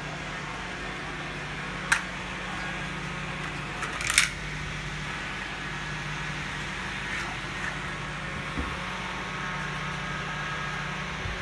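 Small handheld battery fan running with a steady whirring hum, with a sharp click about two seconds in and a short cluster of plastic knocks about four seconds in.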